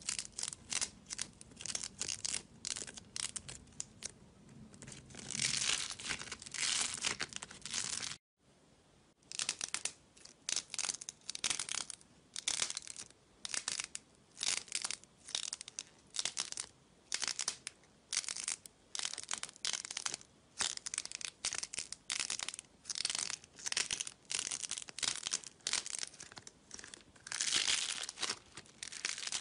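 Fingers pressing and squeezing balls of thick slime, each press giving a short crackling, crinkling squish. The presses come roughly one or two a second after a brief break about eight seconds in, and near the end there is a longer crackle as a lump of the slime is kneaded.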